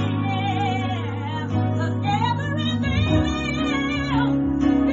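Gospel music: singing over instrumental accompaniment with steady bass notes.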